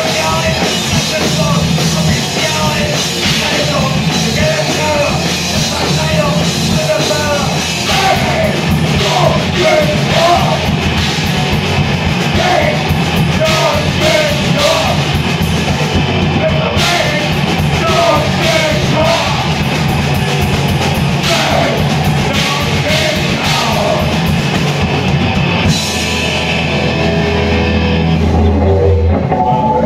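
Crossover thrash band playing live: loud distorted electric guitar and bass over a drum kit, with a shouted lead vocal. About four seconds before the end the cymbals drop out and lower, held notes ring on.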